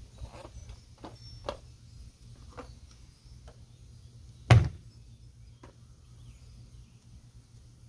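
A few light clicks and knocks of parts being handled, then one loud knock about four and a half seconds in, over a low steady hum.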